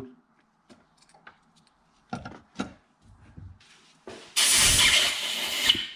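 A few light clicks of small tools and parts being handled, then a compressed-air blow gun blasting in a loud, steady hiss for about two seconds in the second half.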